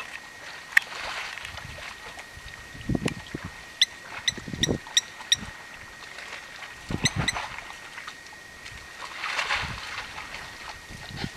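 Mud and water sloshing and splashing in short bursts as a baby elephant struggles to climb out of a waterhole. In the middle comes a quick run of five sharp ticks, and a faint steady high tone runs throughout.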